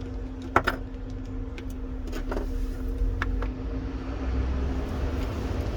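Small sharp clicks and ticks of a precision screwdriver and tweezers on the phone's loudspeaker screws, about half a dozen, the sharpest about half a second in, over a steady low hum.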